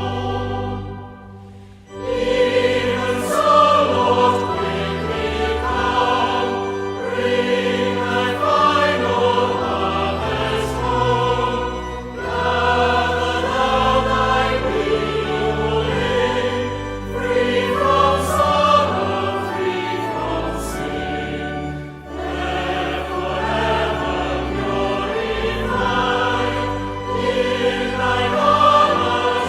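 A choir singing a hymn with sustained instrumental accompaniment underneath. The music drops away briefly about a second in before the next phrase starts, and dips again about two-thirds of the way through.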